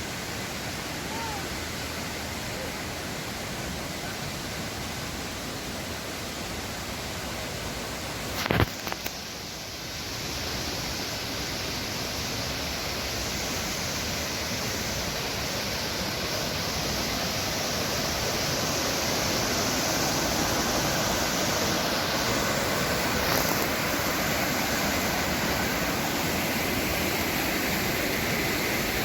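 Rushing water of the upper Düden waterfall, a steady dense rush of noise. A brief knock comes about eight and a half seconds in, and after it the rush grows gradually louder and brighter.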